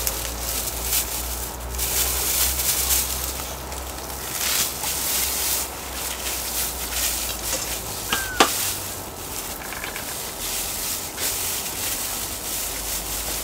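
Pieces of pork belly sizzling as they are laid on a hot cast-iron cauldron lid, with clicks of metal tongs against the lid. A brief high squeak sounds about eight seconds in.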